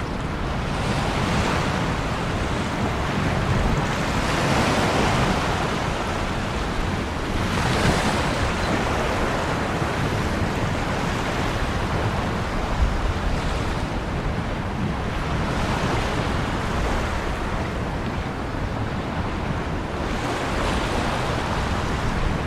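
Ocean surf: a continuous wash of waves breaking and running up the shore, swelling with each new wave every three to five seconds.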